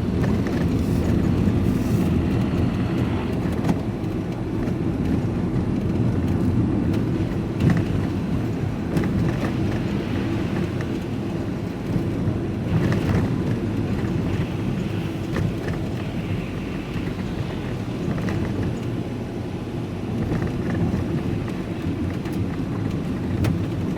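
Steady low rumble of a running vehicle, with a few faint clicks and knocks over it.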